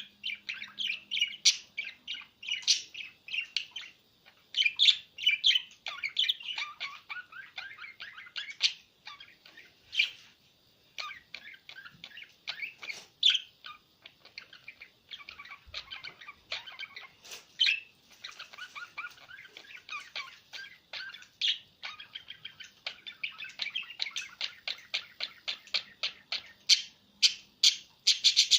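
Small pet bird chirping in rapid strings of short, high chirps, with brief pauses.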